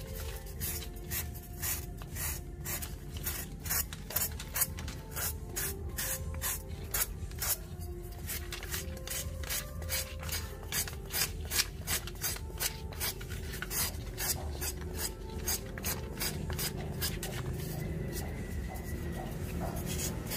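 Fine sandpaper rubbing back and forth over a carved polystyrene foam block, smoothing it, in quick scraping strokes about two or three a second.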